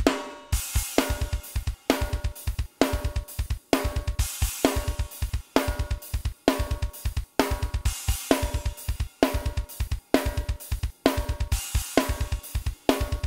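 Raw multitrack recording of a metal drum kit playing back: a steady, tightly played groove of fast kick drum strokes, snare hits with a ringing tone, and cymbals and hi-hat.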